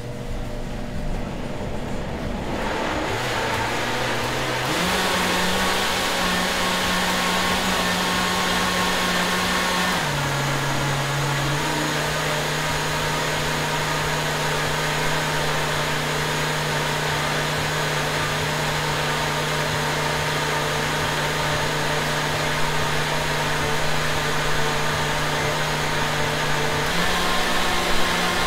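Countertop blender blending a smoothie of greens, fruit and water: the motor spins up over the first few seconds, then runs steadily, its hum stepping up and down in pitch a few times as the speed changes.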